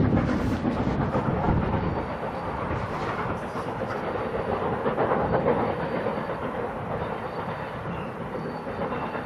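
Steam locomotive working hard as it hauls a train of coaches, its exhaust beating in a dense, steady chuffing, a little fainter in the second half.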